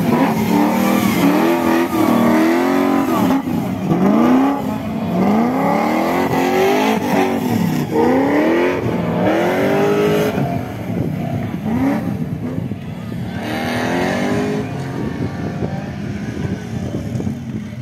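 Off-road race buggy engine revving hard again and again on a dirt course. Each rev rises in pitch and drops back, roughly once a second, and the revs grow fainter in the second half.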